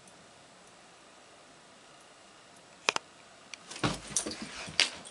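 Quiet room, then a sharp double click about three seconds in, followed by scuffling and thumps as a dog jumps down off a floor cushion and scrambles away.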